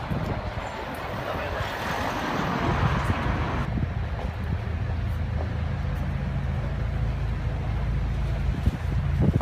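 City street traffic noise: a hiss in the middle range swells and cuts off suddenly about four seconds in, and a steady low vehicle engine rumble runs underneath.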